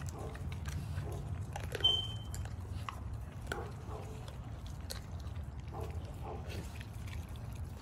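Pit bull chewing and crunching a whole raw chicken, with scattered wet bites and crunches over a steady low rumble. A brief high squeak sounds about two seconds in.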